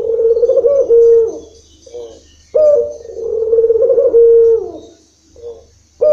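Barbary dove (ringneck dove, the local 'puter') cooing in long rolling phrases: one coo trails off about a second in, a short note follows, then a long coo of about two seconds, another short note, and a new coo begins at the end. This is the long cooing rhythm ('irama panjang') that breeders prize.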